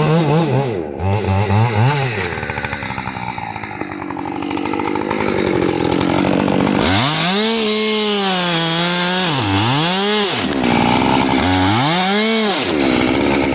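Husqvarna two-stroke chainsaw revving and cutting wood. The engine pitch swings up and down in quick throttle blips at first, then holds high with a steady cutting hiss, dipping sharply twice near the end as the chain loads up in the cut and recovering each time.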